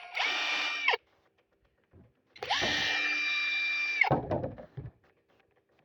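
DeWalt 20V brushless cordless driver run twice with no load by trigger: a short burst of under a second, then a longer run of nearly two seconds, each a steady motor whine that winds down when the trigger is released. A couple of low knocks follow the second run.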